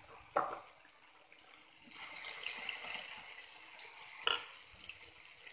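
Urad dal vadas deep-frying in hot oil: a steady sizzling hiss that grows louder about two seconds in. Two sharp clinks come, one about half a second in and one just after four seconds.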